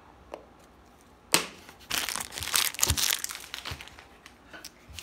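Plastic toy packaging crinkling and rustling as it is handled, after a sharp click about a second in.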